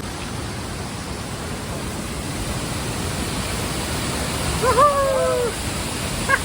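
Steady rush of falling water from a waterfall. A short pitched call cuts in about three-quarters of the way through, gliding down and up for under a second.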